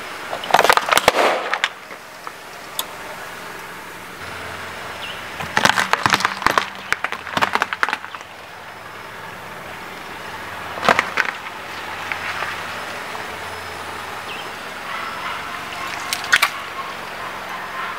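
A car tyre rolling over things and crushing them, in four bouts: a burst of crackling and splashing about half a second in, a longer run of crackles and pops from about six to eight seconds in, a single sharp crack about eleven seconds in, and a short crunch and squelch near the end as tomatoes burst under the tyre.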